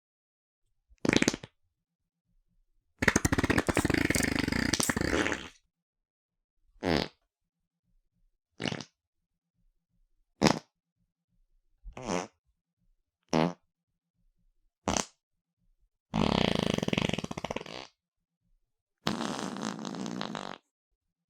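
A run of about ten separate fart sound effects, one after another with silent gaps between them. Most are short, well under a second, and three are longer, two seconds or more each.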